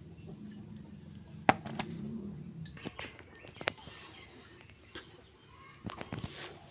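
A few sharp clicks and knocks as a plastic basin of freshly washed shrimp is handled, the loudest about one and a half seconds in.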